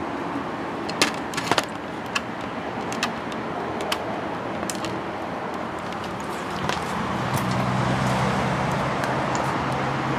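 Steady road traffic noise with scattered sharp clicks. About seven seconds in, a low engine hum sets in and holds steady.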